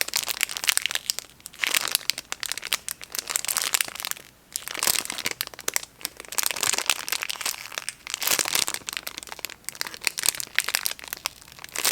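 Plastic packaging crinkling and crackling as it is handled, in irregular bursts with short pauses between them.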